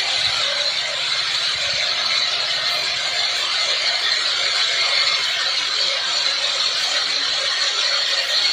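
Homemade helicopter's engine running with its main and tail rotors spinning on the ground: a steady, loud whirring noise with a strong high hiss.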